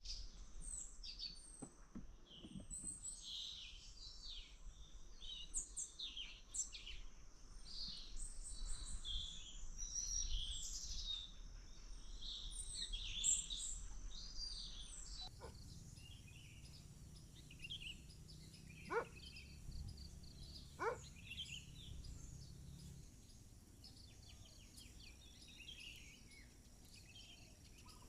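Forest birdsong: many birds chirping and calling over a steady high-pitched hum. About halfway through the sound cuts to a sparser stretch with fewer calls and two long falling whistles a couple of seconds apart.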